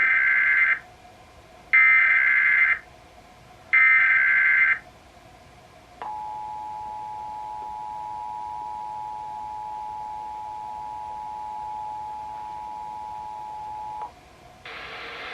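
Emergency Alert System SAME header: three loud one-second bursts of warbling data tones, about two seconds apart, followed by the EAS two-tone attention signal, held steady for about eight seconds and cutting off sharply. It opens the broadcast of a national EAS test, and a steady hiss starts just before the end.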